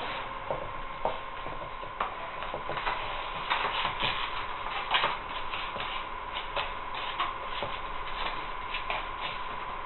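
Fan fold foam sheet being pressed and worked into a mold by hand: irregular crinkling and rustling, with scattered light crackles. A faint steady high tone runs underneath.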